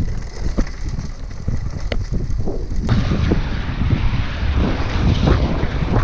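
Mountain bike ride heard through an action camera: wind buffeting the microphone with low rumble, and sharp knocks and rattles from the bike over a rough dirt trail. About three seconds in the sound turns to a louder, hissier rush of wind and tyre noise.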